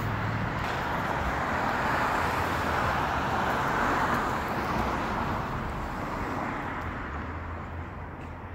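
Road traffic noise: a vehicle passing by, its hiss swelling and then fading away over several seconds.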